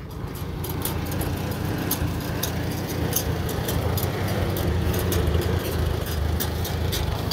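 1950 Farmall H's four-cylinder gasoline engine running steadily as the tractor drives with a heavy snowblower raised on its hydraulic lift, picking up a little in the first second, with light clicking and rattling over the low engine drone. The engine is running well.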